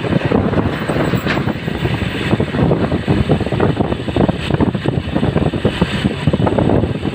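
Road vehicle running on the move, a steady rumble of engine and road noise, with heavy wind buffeting on the microphone.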